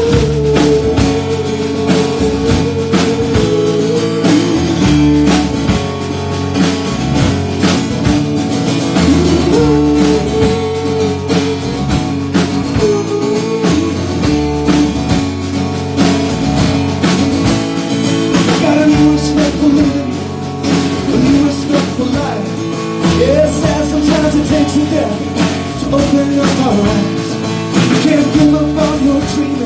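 Live rock band playing: a man singing with acoustic guitar over a full drum kit.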